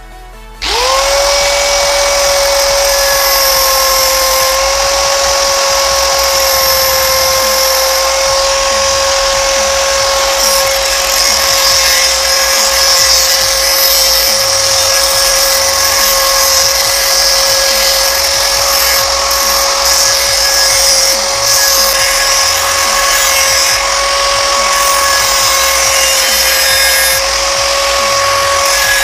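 Angle grinder with a cutting disc starting up about half a second in and running with a steady high whine while it grinds metal.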